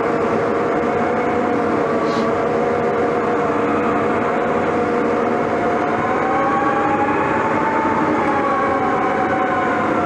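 Case 1150M crawler dozer running as it pushes dirt, heard from the cab: a steady diesel drone with a whine over it. The whine rises in pitch about six seconds in and falls back near the end.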